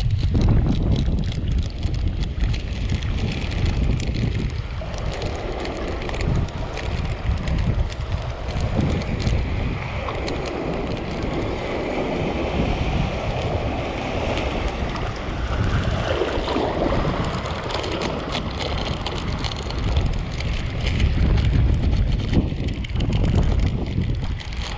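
Wind buffeting the microphone with a steady low rumble, over sea water washing and lapping among shoreline rocks, the wash swelling now and then.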